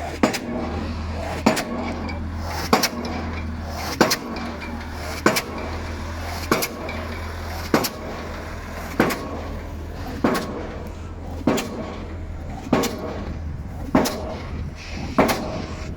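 Pile-driving hammer striking a pile at a steady pace, one blow about every second and a quarter, each with a short metallic ring, over the steady low hum of the rig's engine.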